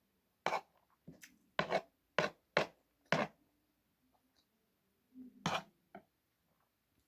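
Close-up eating sounds: six short crunchy noises about half a second apart, then a pause and two more a little after halfway.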